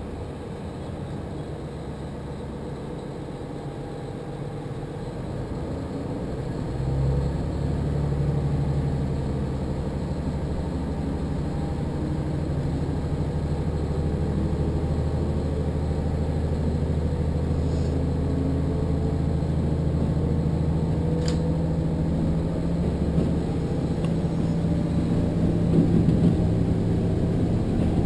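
Diesel railcar running, heard from inside the passenger cabin: a low, steady engine drone with the rumble of the moving train. The engine note steps up and grows louder about seven seconds in, then holds steady.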